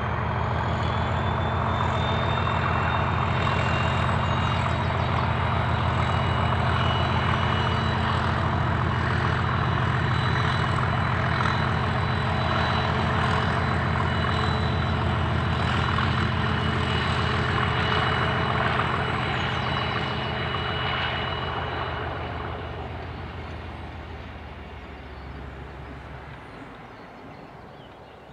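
Class 37 diesel locomotive hauling a test train past, its English Electric engine giving a steady deep throb with thin high whistling tones over it. The sound fades away over the last several seconds as the train recedes.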